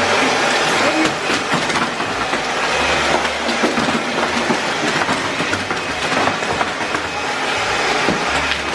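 Dozens of fidget spinners spinning at once, a dense whirring rattle full of quick small clicks as the spinners are set going and knock against each other.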